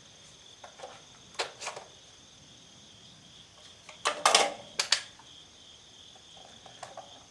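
Sharp metallic clicks and clacks of a Centurion BP12 12-gauge bullpup shotgun being handled, its action and magazine worked while a feeding problem is looked into. The loudest cluster comes about four to five seconds in. Crickets chirp steadily throughout.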